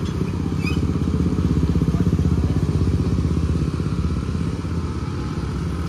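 Vehicle engine running with a fast, even pulse, a little louder about two seconds in and then easing back.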